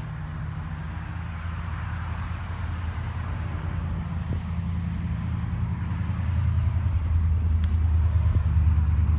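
An engine running with a steady low hum that grows gradually louder.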